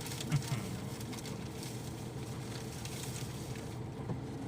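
Dump truck diesel engine running steadily, with light rattles and clicks and one short knock about a third of a second in.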